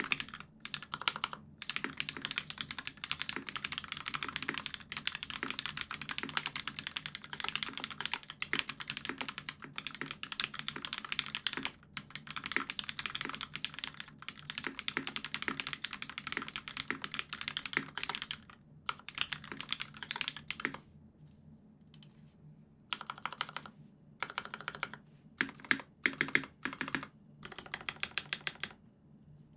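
Mechanical keyboard typing on a UTD356Mini with an aluminium plate, lubed Cherry MX Black linear switches and GMK keycaps. Fast continuous typing until about two-thirds through, then a pause and shorter bursts with a few louder single key strikes, stopping just before the end.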